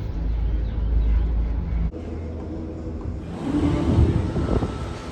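Low rumble of wind buffeting the microphone, breaking off sharply about two seconds in, then a busier mix of noise with some faint steady tones.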